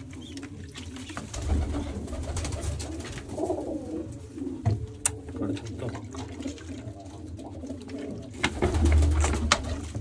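Domestic pigeons cooing repeatedly in a loft, with a few sharp clicks and low bumps from the squab being handled and fed.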